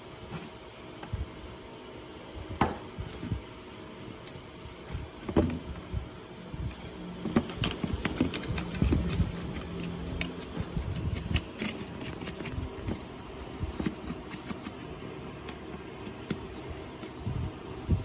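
A thin metal tool and fingers scraping and picking dried, caked sand out of a small plastic RC boat hull, with irregular sharp clicks and taps against a wooden table and a scratchier stretch in the middle.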